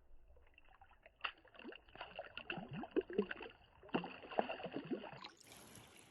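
Water sloshing and splashing in a run of small, muffled plops, each falling quickly in pitch, which stop abruptly about five seconds in.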